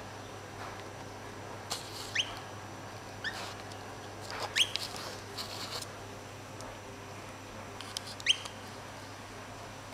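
European goldfinch giving short rising call notes, four over several seconds, two of them close together near the middle. A few sharp light clicks come between and just before the calls.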